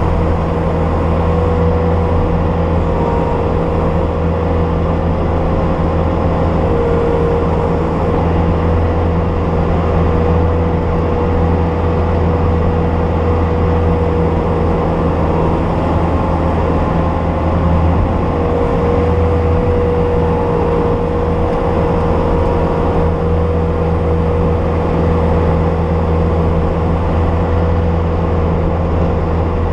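Bobcat S250 skid steer's engine running steadily under load, a deep drone with a steady higher tone over it.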